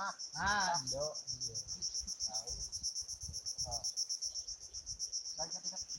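Crickets chirping in a steady, fast, high-pitched pulse, with a few people talking in low voices over it.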